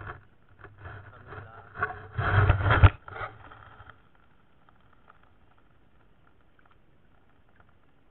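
Muffled scraping and knocking of an underwater camera being handled and moved through the water, loudest about two to three seconds in. After that, only faint underwater hiss.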